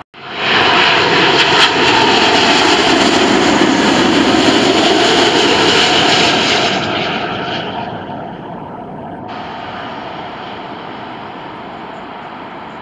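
British Airways Boeing 777 passing low overhead on final approach, its twin jet engines loud and steady, fading after about seven seconds to a quieter, more distant jet roar.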